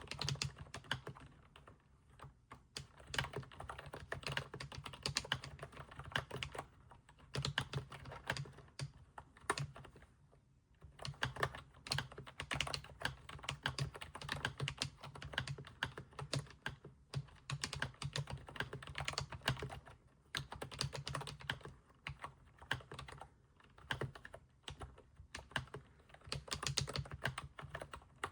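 Typing on an Aula S99 mechanical keyboard: quick runs of keystrokes, broken by a few short pauses.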